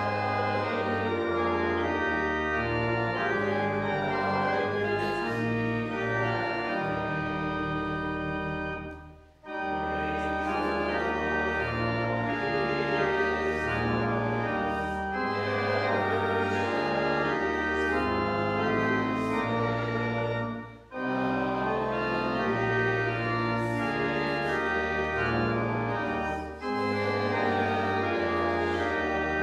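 Church organ playing full, sustained chords over a moving bass line, in phrases broken by short breaks about 9, 21 and 27 seconds in.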